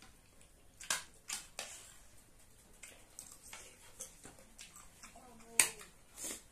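Two people eating noodles: forks and spoons clicking and scraping on plates, mixed with eating mouth sounds, as a handful of short sharp clicks, the loudest about five and a half seconds in.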